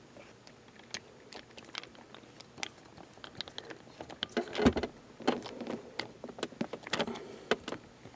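Irregular small clicks and taps of a screwdriver driving a screw into the plastic console lid to fasten the latch, with one duller knock about halfway through.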